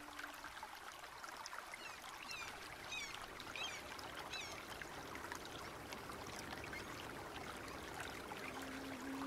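Faint trickling, running water with many small ticks and drips, and a few short high chirps about two to four seconds in.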